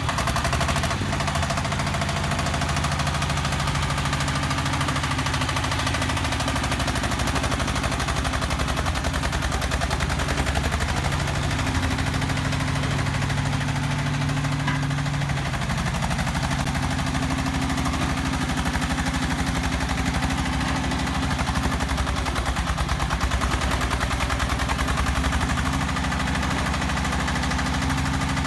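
Engine of a self-loading concrete mixer truck running steadily with a rapid, even pulsing; its pitch steps up and down a few times.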